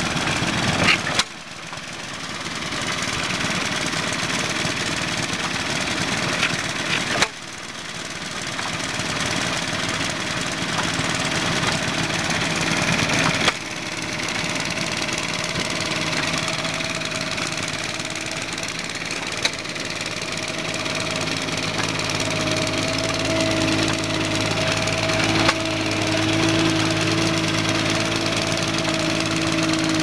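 Several small vintage stationary engines running together in a steady mechanical clatter. A steadier hum grows stronger in the second half.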